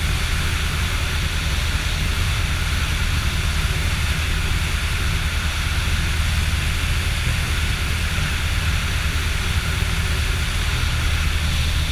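Steady cockpit noise of a motor glider on its landing approach: the engine running at low power with a constant low hum under an even rush of airflow.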